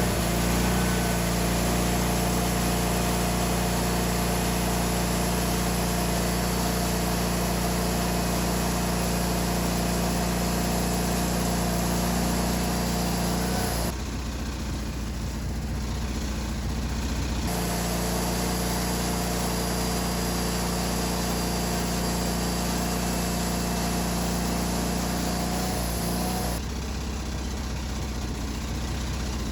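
Wood-Mizer LT40 band sawmill's engine running steadily as the mill warms up. About halfway through, and again near the end, the sound drops quieter and duller for a few seconds.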